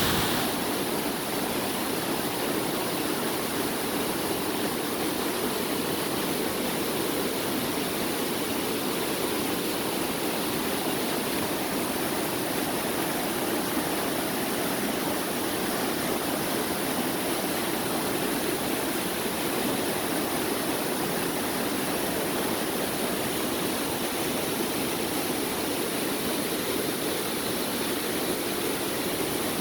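Waterfall: falling water rushing steadily, with no change.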